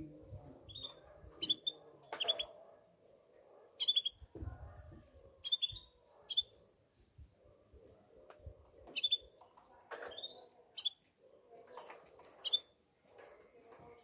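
Caged canaries giving short, sharp single chirp calls, scattered one or two at a time every second or so, rather than a sustained song.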